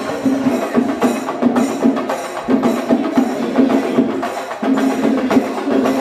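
A percussion ensemble playing a fast, dense drum rhythm with sharp stick strokes, a steady band of sound running beneath it.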